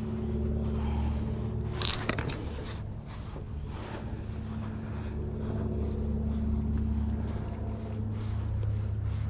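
Baitcasting reel cranked steadily on a spoon retrieve: a low mechanical whirring hum that swells and eases, with one sharp click about two seconds in.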